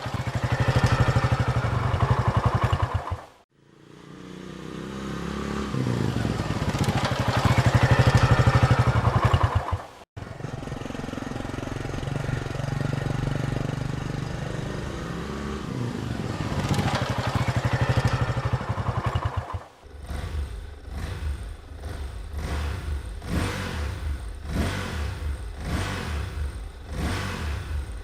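Motorcycle engine in several spliced recordings: running and building up in loudness under power, cutting off abruptly about three and a half seconds in, again about ten seconds in and about twenty seconds in. The last part is an uneven, pulsing idle of a few beats a second.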